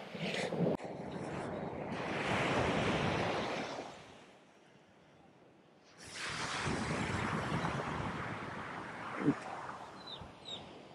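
Rushing noise of surf and wind on the microphone that swells and fades twice, with a near-quiet lull of about two seconds in the middle.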